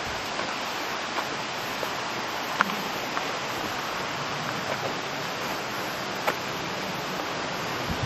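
Steady rushing of falling water from a waterfall and its stream. A few short taps, footsteps on stone steps, stand out, the clearest about two and a half seconds in and again past six seconds.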